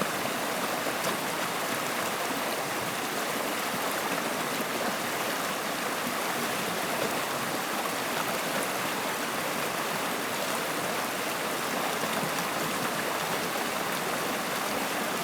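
Running water of a stream, flowing with a steady, even rush.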